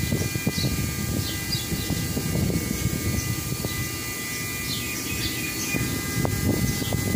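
Outdoor background: a low, uneven rumble with short falling bird chirps now and then.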